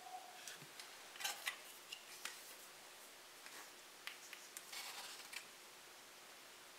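Small clicks, taps and knocks of an insulated drink tumbler, its lid and a plastic water bottle being handled on a kitchen counter, ending in a brief rustling scrape.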